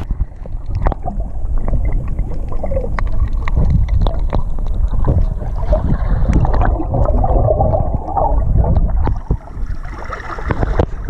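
Sea water heard from underwater: muffled sloshing and gurgling with many short clicks and bubble sounds. About ten and a half seconds in the sound opens up again as the microphone comes back above the surface.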